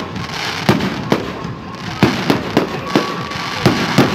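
Fireworks display: aerial shells bursting in a string of sharp bangs at uneven intervals, about seven of them, sometimes two or three in quick succession.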